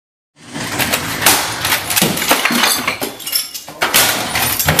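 A man in a rage smashing and knocking things about: a rapid, loud run of crashes and bangs, starting about half a second in after a moment of silence.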